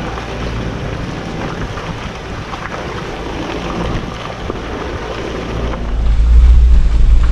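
Jeep Wrangler Rubicon on 35-inch tyres creeping through sticky trail mud: a steady rush of tyre and mud noise over the low hum of the engine. About six seconds in, a much louder deep rumble takes over.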